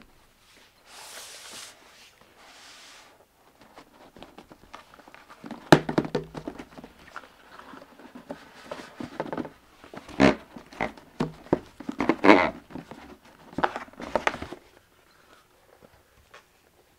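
Hands handling a rigid cardboard presentation box. Two soft rubbing hisses come first. Then, as the lid is worked off the base, a busy run of knocks, taps and scraping follows and dies away near the end.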